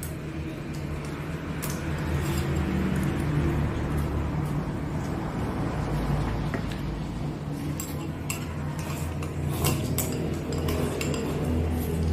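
Chopsticks clicking against a ceramic rice bowl during a meal, with light tableware clinks, more often in the second half. A steady low hum runs underneath.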